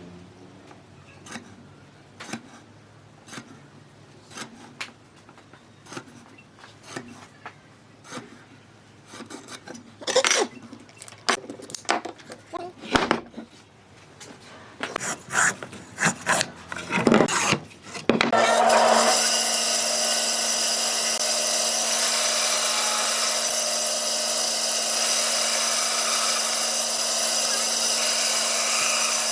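Hand work on wood: scattered taps and scraping or sawing strokes, growing louder and closer together about halfway through. About 18 s in, an electric power tool starts on the wood and runs steadily with a constant hum.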